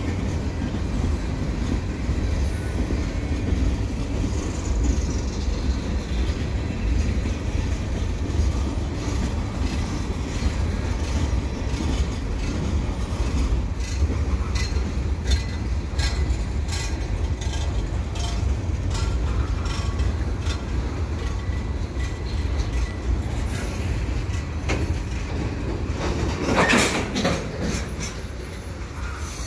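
Cars of a long CN mixed freight train (tank cars, boxcars and autoracks) rolling past. It is a steady low rumble with repeated clicks of wheels over the rail joints, and one brief louder sound near the end.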